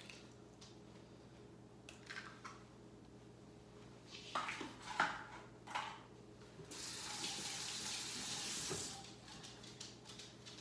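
A few short knocks and clatters, then a kitchen sink tap running for about two seconds before it is shut off.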